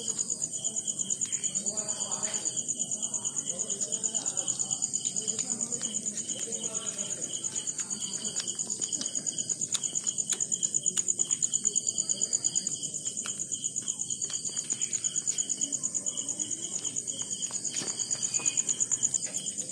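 Steady chorus of night insects, a high-pitched rapid pulsing trill like crickets, going on without a break.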